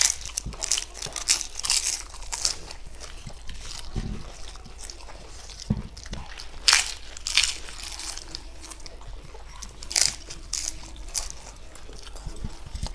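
Papri chaat being bitten and chewed by two people: the crisp fried papri wafers crunch and crackle irregularly, with wet chewing in between and a few sharper, louder crunches.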